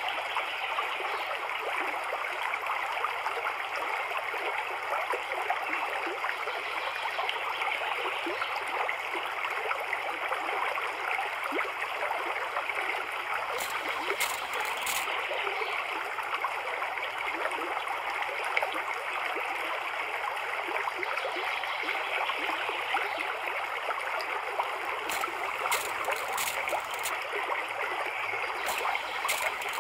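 Steady trickling running water, like a small stream, with a few short hisses of a spray mister about 14 seconds in and again near the end.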